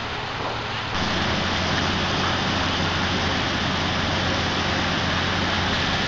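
Steady rushing noise with a low hum beneath it, jumping louder about a second in.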